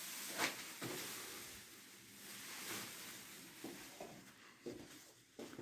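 Faint footsteps and rustling of someone walking through an empty room, a few soft taps over a steady hiss.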